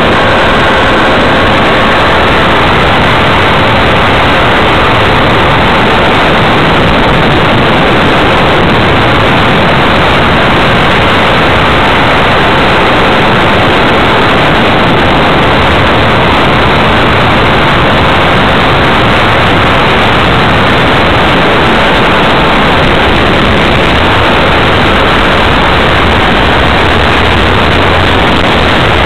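Onboard audio of an RC FPV plane in flight: a loud, steady rushing of air and motor noise with a faint steady whine from the propeller drive.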